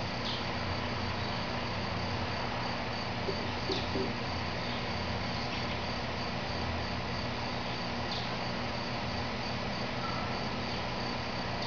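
Outdoor insect chorus: crickets trilling steadily at a high pitch, with a few short high chirps scattered through and a low steady hum underneath.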